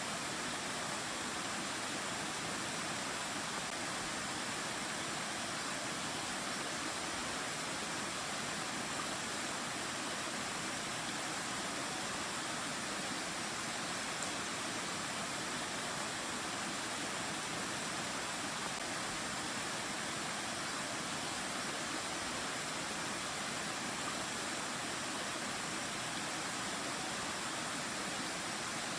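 Mountain stream water flowing and rushing over rocks in a steady, unbroken hiss.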